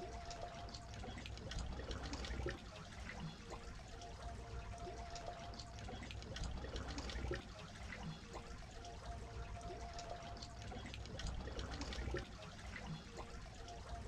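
Small waves lapping and trickling at a rocky shoreline, with a low rumble underneath and scattered small splashes. The same few seconds of sound repeat about every five seconds.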